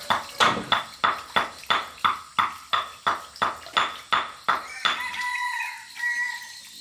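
Steady rhythmic knocking, about three strokes a second, stops about five seconds in while a rooster crows.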